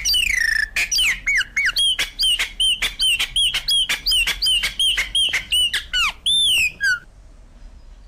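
Giant cowbird calling: a rapid run of short, squeaky whistled notes mixed with sharp clicks, stopping abruptly about seven seconds in.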